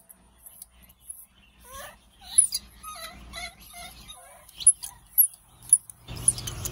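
Baby macaque monkeys crying: a run of short, high, wavering cries about two seconds in. Brief, very high chirps recur throughout.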